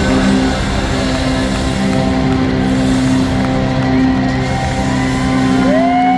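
Live rock band playing loud, holding long sustained notes and chords, with a new note sliding up into a held tone near the end.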